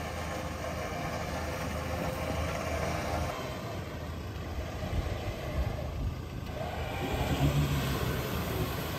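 Diesel four-wheel-drive engines running during a winch recovery, as a stuck Ford Ranger is pulled forward out of a muddy rut. The engine note rises and falls a little in the last few seconds.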